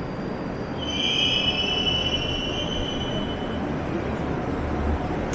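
Moscow Metro train's wheels squealing on the rails, a high-pitched squeal that sets in about a second in and dies away past the middle, over the steady low rumble of the train.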